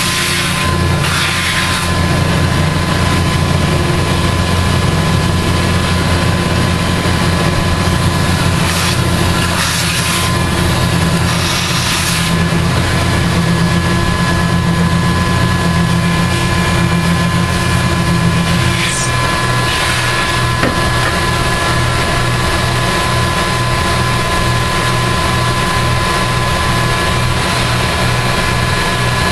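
End mill on a CNC-converted mill/drill cutting a curved slot into a cast-iron brake rotor: steady motor hum with a high whine and a scraping hiss as the cutter bites. About two-thirds through, the low hum changes to an even pulsing beat.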